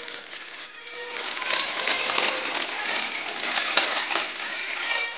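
Crinkling and rustling of plastic instant-noodle packets and a foil seasoning sachet being handled and torn open. Faint short tones sound behind it.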